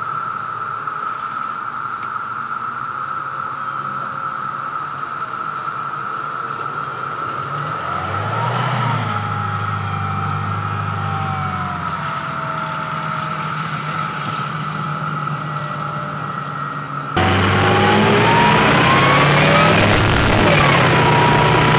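Oshkosh L-ATV armored tactical vehicle's diesel engine running off-road, with a steady high whine under it; about eight seconds in the engine revs up and then eases back. About seventeen seconds in the sound turns suddenly louder and rougher, the engine pitch climbing and falling as the vehicle drives along a gravel track.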